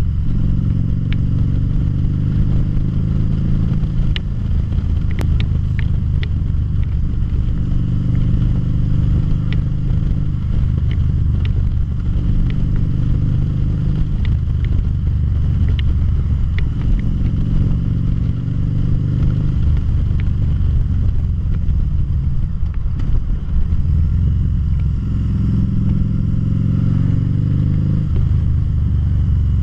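A 2013 Harley-Davidson V-Rod Muscle's liquid-cooled V-twin engine running under way, its note rising and falling as the bike speeds up and slows. A few sharp ticks are heard in the first half.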